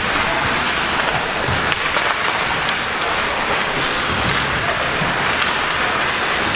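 Ice hockey play: a steady scraping hiss of skates on the ice, with a few faint sharp clicks of sticks or puck.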